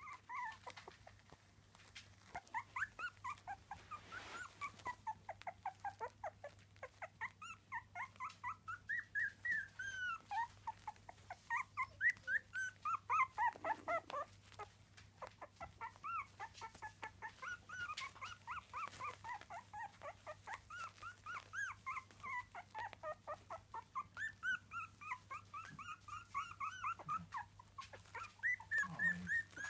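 Litter of three-week-old miniature dachshund puppies whimpering and squeaking: a steady stream of short, high-pitched cries, several a second, often overlapping from more than one pup.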